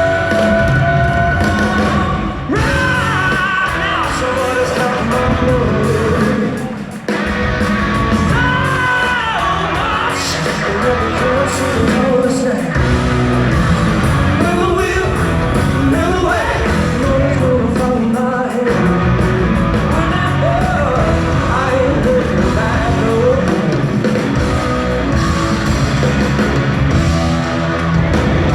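Live rock band playing loudly in a large venue, heard from the crowd: distorted electric guitar, bass and drums under a male lead vocal singing and wailing, with one brief drop in the band at about seven seconds.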